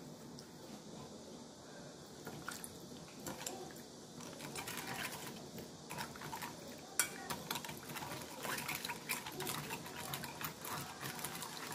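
Metal spoon clinking and scraping against a ceramic bowl while stirring sliced cucumber in a thin dressing, with water poured into the bowl partway through. The taps come irregularly and grow busier after a few seconds.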